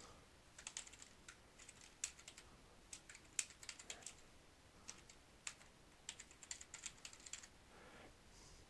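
Computer keyboard keys being typed, faint, in short runs of keystrokes with brief pauses between them.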